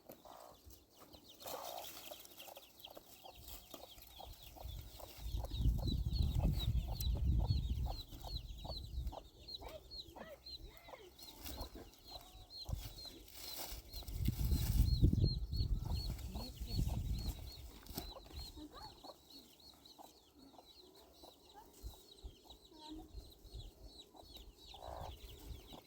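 Chickens clucking, with a long run of short, high peeps repeating several times a second. Two low rumbles come through, about five seconds in and again near the middle.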